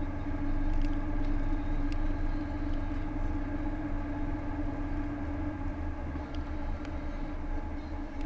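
Steady car road noise and engine hum heard from inside the cabin at cruising speed: a deep rumble with a steady drone above it.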